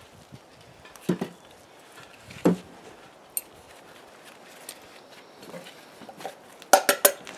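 A wooden casting flask being emptied of its hot sand mould into a steel wheelbarrow after an aluminum pour. There are single sharp knocks about a second in and again about two and a half seconds in, then a quick run of louder knocks near the end.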